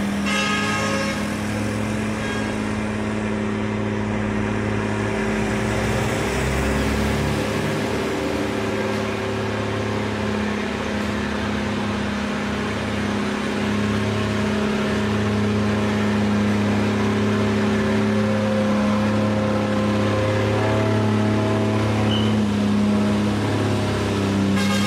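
Heavy Mitsubishi truck's diesel engine labouring uphill in a low gear at steady revs, a continuous drone that grows louder in the second half as the truck approaches.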